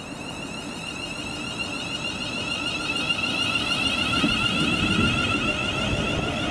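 Approaching train, getting steadily louder, with a high wavering whine over the rumble of the wheels on the track.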